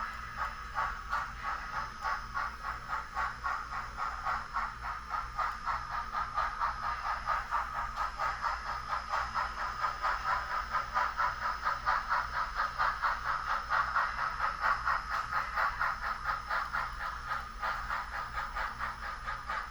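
Scratch-built HOn3 model railroad turntable running on test, giving a steady, rapid rattling of even clicks, a few per second, that swells slightly toward the middle.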